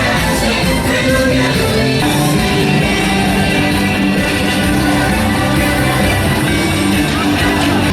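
Rock-style music with singing, steady and loud throughout.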